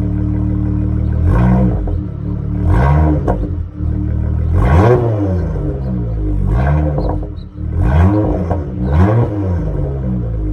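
Dodge Charger exhaust through Flowmaster Super 10 mufflers, idling with a steady burble and given about six light blips of the throttle, each rev rising and falling back to idle. There is some crackle from the exhaust around the rev peaks.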